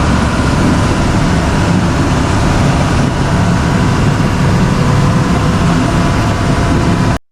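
Amphibious Duck tour vehicle's engine running steadily while it cruises on the river, a loud, even drone that cuts off suddenly near the end.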